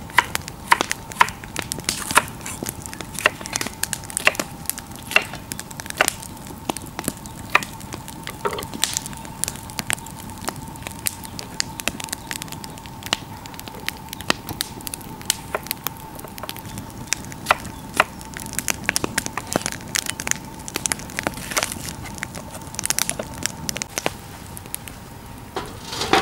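A knife chopping vegetables on a wooden cutting board and a wood fire crackling in a metal barrel stove: sharp, irregular clicks and snaps throughout, over a faint steady high tone.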